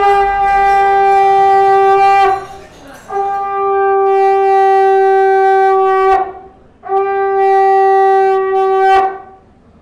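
Conch shell (shankha) blown in three long, steady blasts, each held at one pitch for two to three seconds, with short breaks between them.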